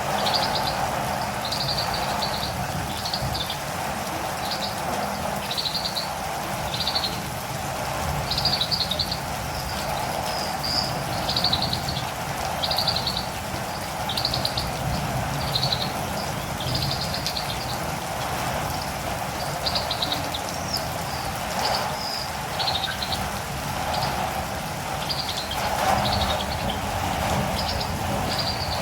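Steady rain with a catirumbava calling over it: short, high, buzzy chirps repeated about once a second.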